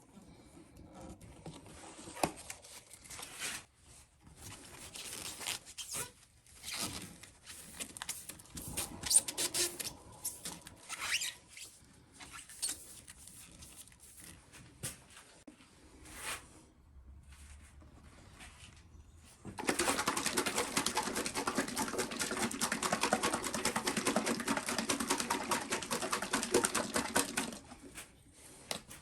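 Hand abrading of a fly rod's rear grip, sanding or filing it to shape. First come irregular short scraping strokes, then about eight seconds of steady, rapid back-and-forth rubbing starting near twenty seconds in.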